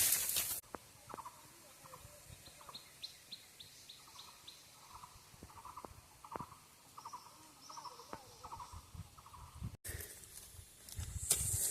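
Birds calling in short repeated notes, with a quick run of higher chirps about three seconds in. It opens with a loud brief rustle and ends with another noisy stretch.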